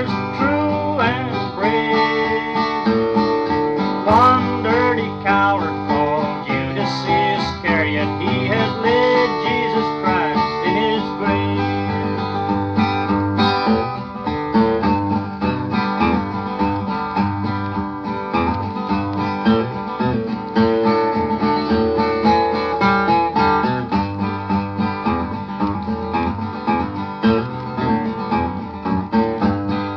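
Acoustic guitar playing a steady country-folk accompaniment.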